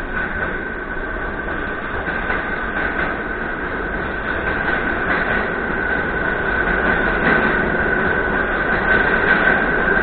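Subway train running past close along the platform edge: a steady rumble of the cars on the rails with a steady high squeal that grows a little louder near the end.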